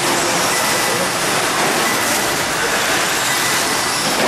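Electric 2WD short course RC trucks racing on an indoor dirt track: a steady hiss of motors, gears and tyres on the dirt, with a thin high whine for a couple of seconds near the start.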